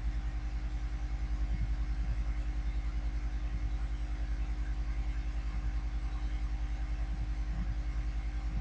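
A steady low electrical hum in the recording, with a fast, even flutter and a faint hiss behind it. It is typical of mains hum picked up by the microphone chain.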